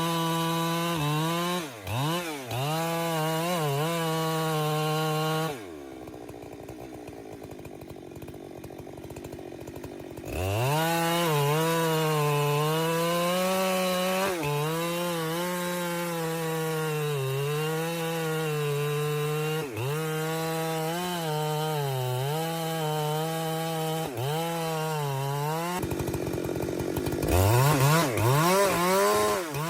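Chainsaw engine running at high revs while cutting wood, its pitch sagging again and again as the chain bites in. It falls back to a quieter idle about six seconds in, revs up again around ten seconds, and briefly drops and revs up once more near the end.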